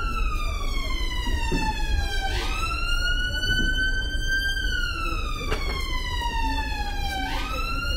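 Emergency vehicle siren sounding a slow wail: a single tone slides down for about two and a half seconds, jumps quickly back up and climbs slowly, and the cycle repeats about every five seconds, twice here.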